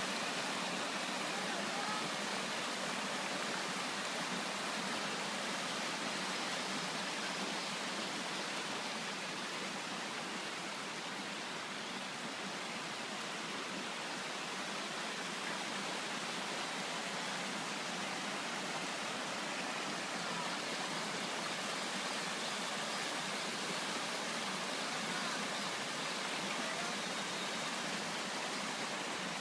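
Stream water rushing in a steady, unbroken flow.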